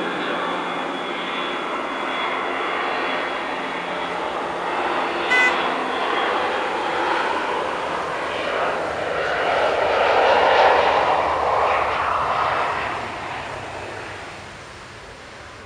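Boeing 737-400's CFM56-3 turbofan engines at take-off thrust during the take-off roll: a steady whine over a rushing noise. It grows loudest about ten seconds in as the airliner passes and fades as it lifts off. A brief high blip comes about five seconds in.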